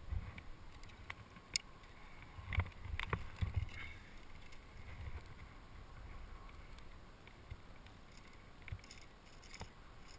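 Scattered knocks and light clinks of climbing gear, carabiners and quickdraws, with rope being handled, picked up close by a head-mounted camera; the loudest knocks come in a cluster about two and a half to three and a half seconds in.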